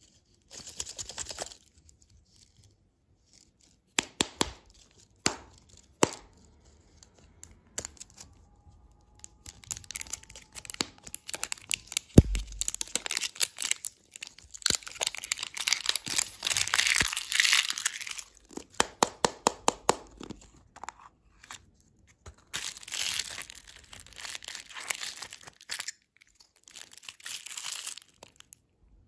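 Crinkly plastic wrapper of a toy-capsule lollipop being torn and peeled off by hand, in bursts of crinkling mixed with clicks from the hard plastic capsule. One sharp loud snap about twelve seconds in.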